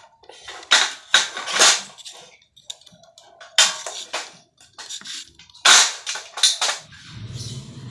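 Cutter knife blade scoring around the outer jacket of a coaxial TV antenna cable: short, sharp scraping strokes in groups of two or three.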